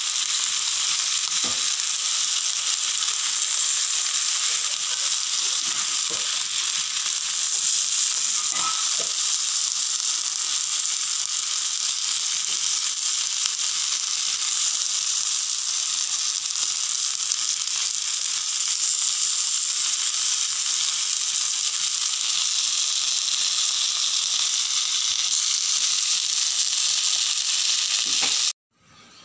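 Chicken pieces sizzling on a hot ridged grill pan: a steady frying hiss with a few faint clicks, cutting off suddenly near the end.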